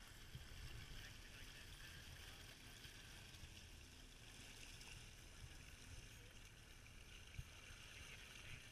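Faint water and wind noise on a boat at sea: a low rumble with a soft hiss, and a light thump about seven seconds in.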